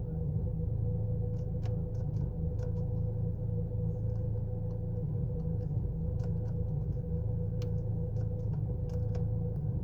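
Chevrolet Cruze engine idling roughly with a misfire, heard as a steady low rumble with an uneven texture, a faint steady hum and scattered light ticks. The misfire makes the car jerk and shake.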